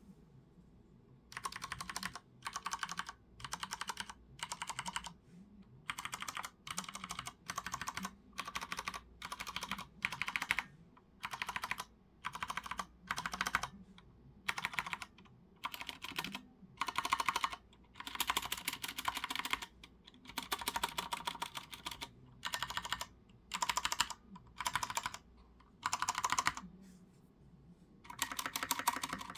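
Typing on a Ducky Shine 3 mechanical keyboard with Cherry MX Brown tactile switches: rapid key clacks in short runs of about half a second to two seconds, with brief pauses between them.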